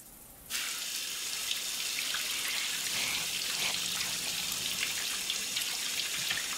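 A shower running, its spray hissing steadily onto a person's head and body. It cuts in suddenly about half a second in.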